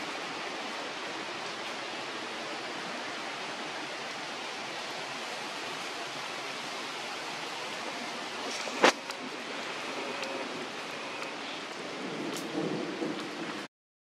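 Steady outdoor rushing noise, with one sharp knock about nine seconds in and a brief dropout to silence just before the end.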